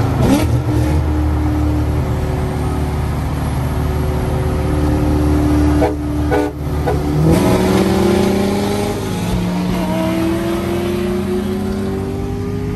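Chevrolet Camaro's engine running steadily alongside a pickup truck, then accelerating hard from about seven seconds in. Its pitch climbs, drops back at an upshift, and climbs again.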